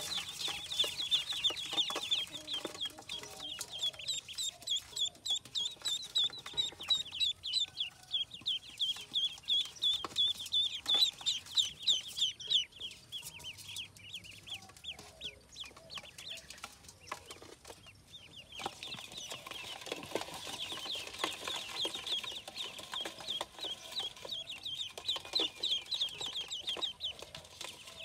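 A group of ducklings peeping, many short, high chirps overlapping in a rapid stream. The peeping thins out for a few seconds around the middle and grows dense again in the last third.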